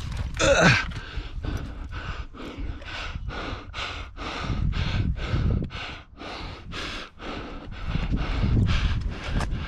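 A climber breathing hard and fast while scrambling up rock, quick panting breaths about three a second close to the microphone, with a louder voiced exhale about half a second in and a low rumble underneath.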